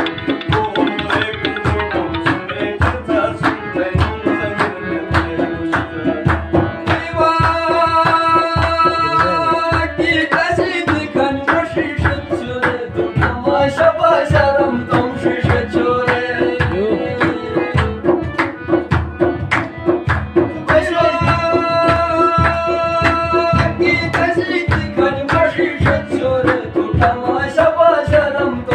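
Shina folk music: a harmonium holding a steady drone and chords, driven by a hand drum beating a fast, even rhythm with handclaps, and a voice singing in places. The harmonium holds long full chords twice, about a third of the way in and again past the middle.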